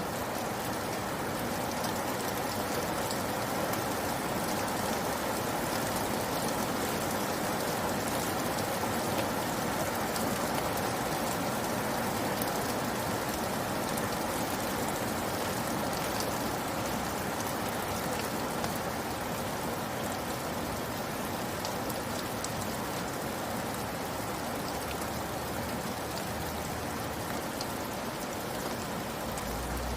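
Steady rain falling, with a dense even hiss of drops.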